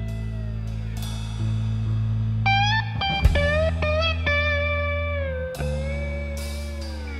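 Background music: a blues-style guitar piece with held notes that bend down in pitch, over steady bass notes.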